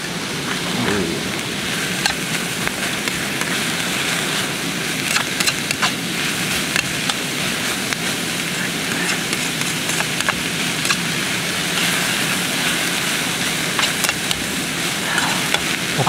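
Vegetables frying in oil in a pan on a portable gas-canister stove, with a steady sizzle and a spoon clicking and scraping against the pan now and then as they are stirred.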